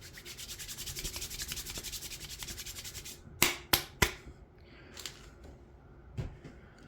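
Hands rubbed briskly together to work in hand sanitizer, a fast, even rubbing of about eight strokes a second that stops about three seconds in. Three sharp clicks follow in quick succession, then a few fainter taps.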